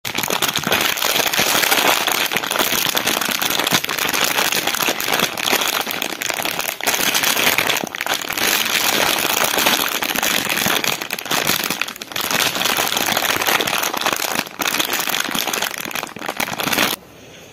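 Plastic sweet bag crinkling and crackling as it is squeezed and handled, a dense run of small crackles that stops shortly before the end.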